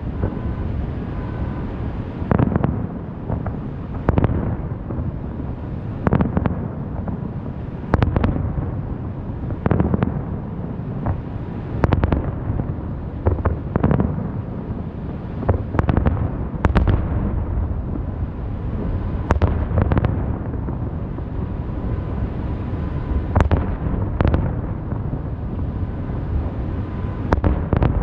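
Aerial fireworks bursting in a continuous show, with sharp booms every second or two over a steady low rumble of overlapping explosions.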